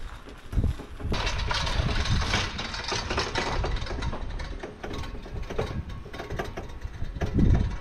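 Quad bike engine running at idle, with rattling clatter and a heavy low thump near the end.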